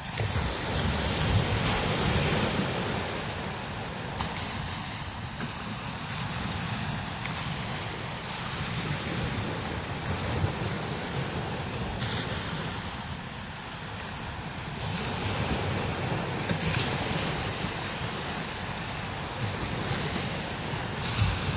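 Strong desert wind gusting over sand dunes, with low rumbling buffeting on the microphone under a high hiss, swelling and easing in surges every few seconds.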